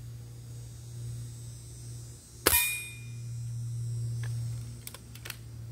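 A single shot from a Gamo Swarm Whisper .22 break-barrel air rifle about two and a half seconds in, the pellet striking a steel target with a sharp clang and a short metallic ring. A few light clicks follow as the barrel is broken open to cock it for the next shot.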